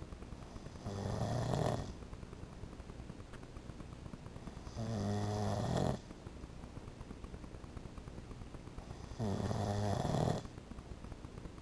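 A man snoring in his sleep: three snores about four seconds apart, each lasting about a second.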